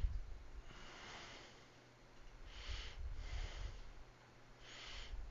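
Bob and Brad EM-19 percussion massage gun with its small sphere head running against oobleck: a quiet low hum with soft thudding. Over it, close breathing through the nose, three soft breaths about two seconds apart.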